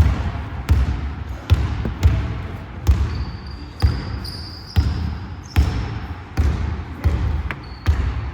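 Basketball being dribbled on a court, about eleven steady bounces, roughly one every 0.8 seconds. A thin high tone sounds over the bounces in the middle.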